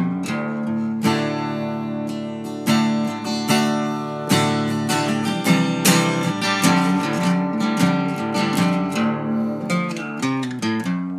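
Background music: acoustic guitar playing a run of picked notes and strummed chords.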